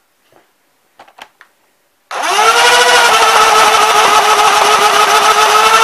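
Modified Nerf Rapidstrike's FK180-size motors, taken from a remote-control helicopter and run on a 7.4 V 2S LiPo, spinning up about two seconds in to a loud, steady high whine while the blaster fires darts on full auto. A few faint clicks come before the motors start.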